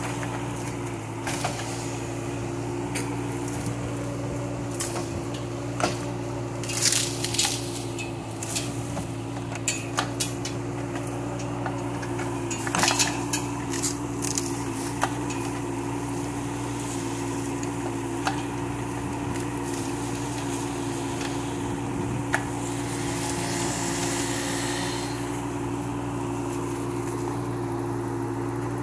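Kubota K008 mini excavator's diesel engine running steadily while its bucket tears out bushes, with branches cracking, snapping and rustling in bunches of sharp cracks several times and a longer rustle near the end.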